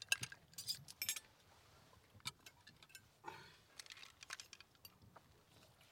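Cutlery and glasses clinking lightly against plates at a dinner table: a cluster of quick clinks in the first second or so, then scattered single ones.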